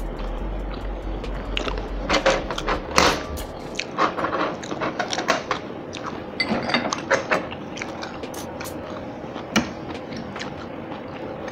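Close-miked chewing and biting of cabbage greens and rice, with irregular wet crunches and short clicks of forks against the plates.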